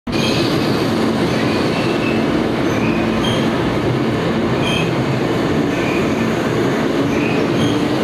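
Hanshin Railway electric train running past, a steady rumble of wheels and motors with short high tones now and then.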